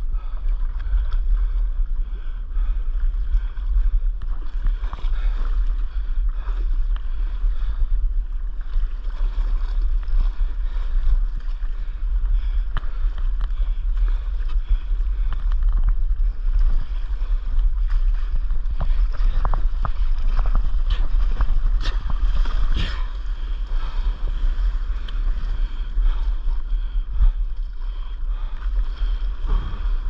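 Wind buffeting a board-mounted camera's microphone in a steady low rumble, over water sloshing and lapping against a stand-up paddleboard, with occasional sharp splashes from the paddle and chop.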